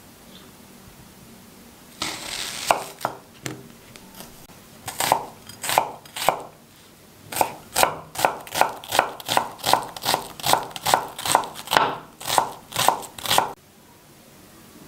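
Large kitchen knife chopping onion on a wooden cutting board: a few separate cuts, then a steady run of chops at about three a second that stops abruptly near the end.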